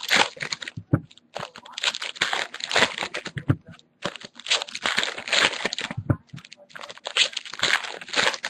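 Crinkling and rustling of foil trading-card pack wrappers and cards being handled, in irregular bursts.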